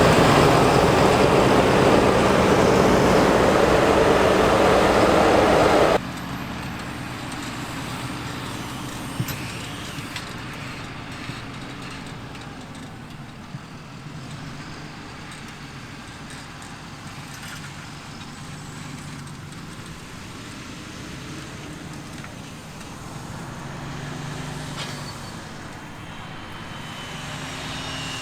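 Fendt 936 tractors' six-cylinder diesel engines working under load while pulling eight-furrow reversible ploughs. The sound is loud and close for about six seconds, then cuts abruptly to a quieter, steady engine drone that swells slightly near the end.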